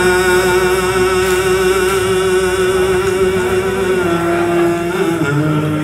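A man's voice chanting a Mouride khassida in Arabic into a microphone, holding one long note with a slight waver. Near the end it steps down to a lower note.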